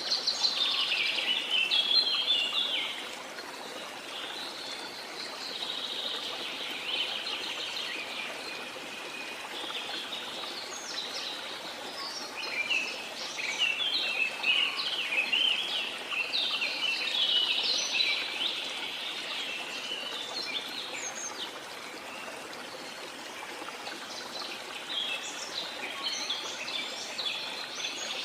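Rainforest birds chirping and trilling in a busy, overlapping chorus over a steady hiss of falling water.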